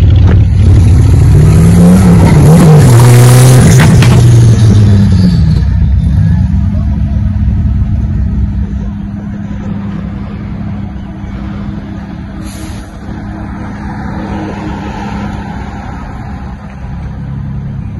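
Lamborghini Countach V12 revving hard as it pulls away, its pitch climbing and dropping a few times in the first five seconds, then running on more steadily and growing fainter as the car drives off.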